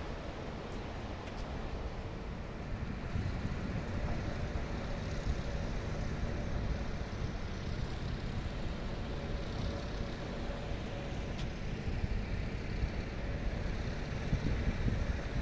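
Steady low rumble of a distant engine running, with a faint steady hum over it.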